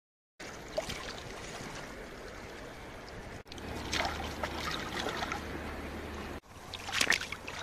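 Shallow seawater trickling and lapping over beach pebbles, with a low rumble in the middle. Near the end come sharp splashes and clicks as hands rummage among the stones in the water.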